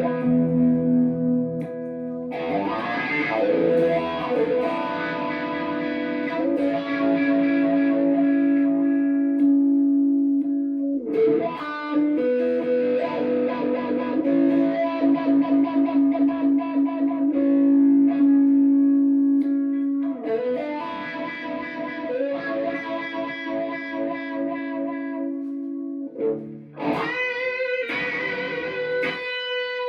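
Electric guitar played through a Dunlop Cry Baby wah pedal set to the GCB-95 voicing, into a Mesa Nomad 100 amp, with sustained notes and chords in several phrases, the upper tones swelling and fading as the wah moves.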